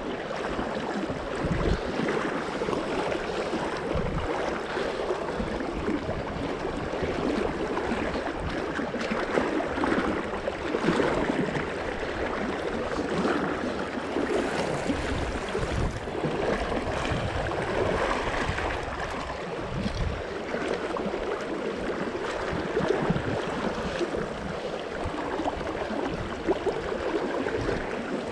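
Steady rush of fast-flowing river water in a shallow riffle close by.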